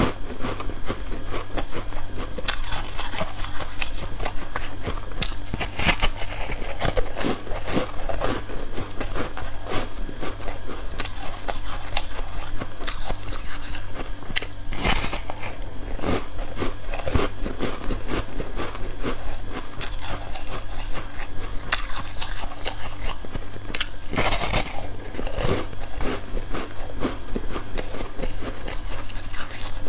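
Close-up biting and chewing of a frozen block of foam ice: a run of brittle crunches as pieces are bitten off and chewed, with several louder, sharper bites spread through.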